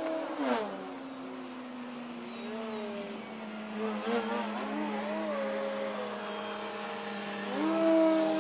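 Extreme Flight 48-inch MXS electric aerobatic RC plane flying, its Torque 2814/820 brushless motor and 12x6 APC propeller whining. The whine drops sharply in pitch about half a second in, wavers up and down through the middle, then rises again near the end, where it is loudest.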